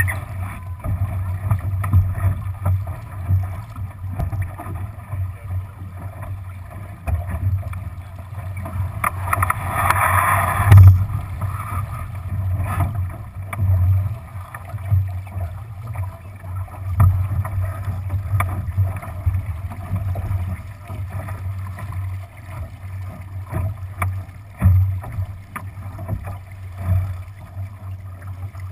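Wind buffeting the microphone and water rushing along the hull of a Lightning-class sailboat under way, in uneven low gusts, with a louder rush about ten seconds in.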